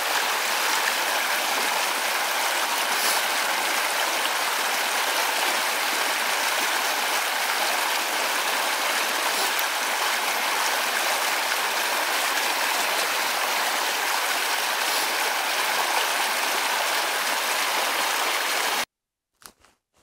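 Shallow stream running over stones in small rapids: a steady rush of water that cuts off suddenly near the end.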